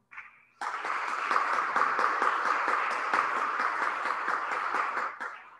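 A small group of people applauding, individual claps distinct, starting about half a second in and stopping near the end.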